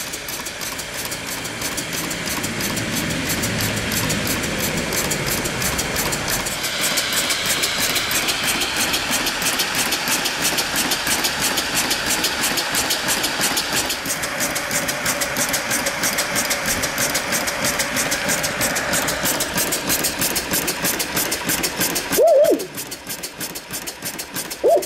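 Homemade coal-fired steam engine running, its exhaust chuffing in a quick, even beat over the hiss of steam escaping from a leaky boiler. Two short, loud sounds with a bending pitch come near the end.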